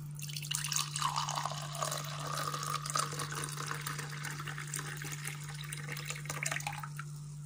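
Milk being poured into a glass: a steady pouring splash whose pitch rises as the glass fills, stopping about seven seconds in.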